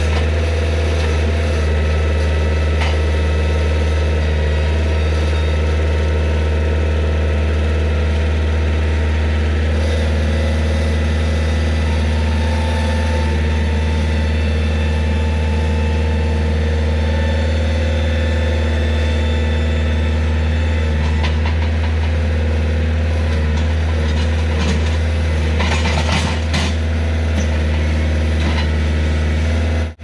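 An engine running steadily at constant speed, with a short cluster of clanks and rattles a few seconds before the end.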